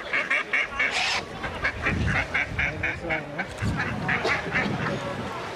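Mallard ducks quacking in three runs of short, rapid quacks.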